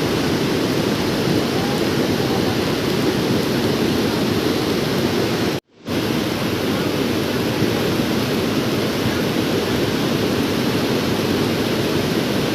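Floodwater rushing in a steady, loud wash of noise that cuts out for a moment about six seconds in.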